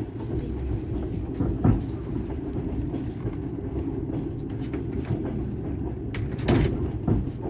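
Passenger train carriage heard from inside while the train rolls along: a steady low rumble from the wheels on the track, with a few sharp knocks as the wheels pass over the rails, the loudest about six and a half seconds in.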